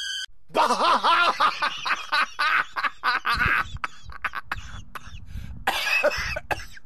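A man laughing hard, his laugh muffled behind his hand: a strong run of laughter at first, breaking into shorter breathy bursts, with one more burst near the end.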